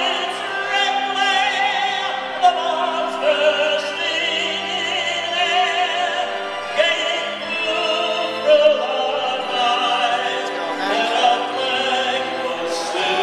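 A male singer sings the national anthem in an operatic style, holding long notes with a wide vibrato.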